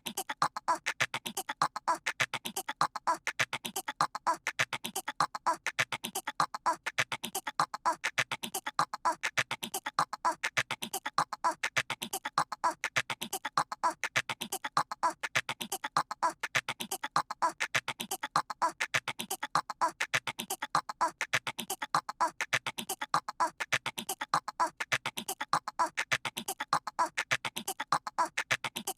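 A cartoon toddler's voice making squirrel chattering noises: a short stretch of quick squeaky chirps, several a second, repeated over and over as a loop.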